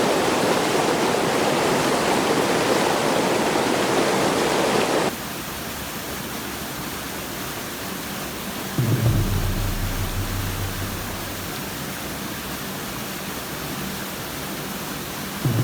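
Steady rushing noise like running water that cuts off abruptly about five seconds in, leaving a quieter hiss. A deep low hum starts suddenly about nine seconds in and slowly fades, then starts again at the very end.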